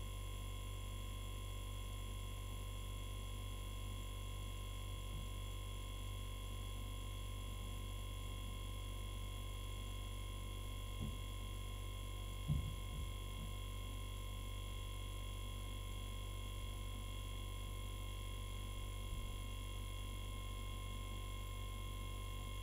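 Hermetic refrigerator compressor running as an airbrush compressor: a steady, quiet low hum as it pumps air into the tank, with a couple of faint knocks about halfway through.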